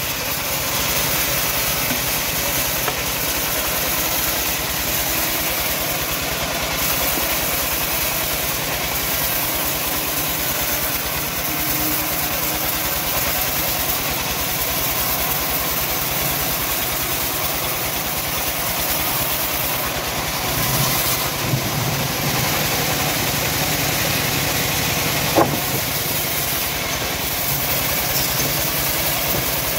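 Homemade bandsaw mill running steadily as its blade saws lengthwise through a teak log, a continuous machine drone with sawing noise. A single sharp click comes about 25 seconds in.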